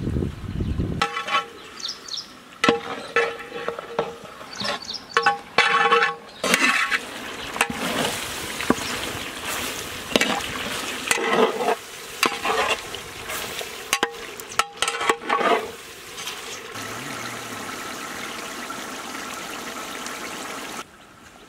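Chicken pieces frying in a large metal pot, stirred with a metal ladle that scrapes the pot in short, irregular strokes with a faint metallic ring. For the last few seconds there is only a steady sizzle of frying, which cuts off suddenly near the end.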